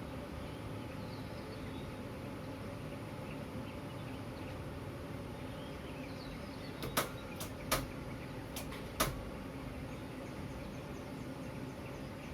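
Early-morning city ambience: a steady low rumble of distant traffic with faint bird chirps over it. In the middle comes a quick run of about five sharp clicks or knocks.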